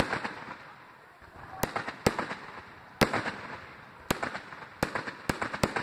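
Aerial fireworks bursting in a string of sharp bangs, roughly one every half second to a second, each trailed by fizzing, crackling sparkle.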